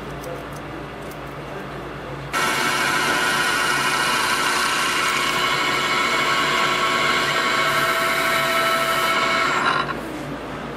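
ProtoTrak CNC mill spindle driving a twist drill through a metal spring clamp. A loud, steady whine with several high tones starts abruptly about two seconds in and cuts off shortly before the end.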